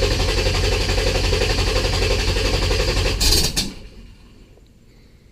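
Car engine cranking on the starter at a steady, healthy pace without catching, with a sharp sneeze back through the intake just before the cranking stops, about three and a half seconds in. The sneeze is a sign of the engine getting too much fuel, running really rich.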